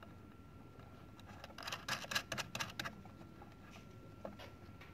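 Small terminal nuts on the indicator's wires being turned by hand, with light clicks and rubbing of fingers, metal and wire. The clicks come in a quick cluster from about a second in to about three seconds in.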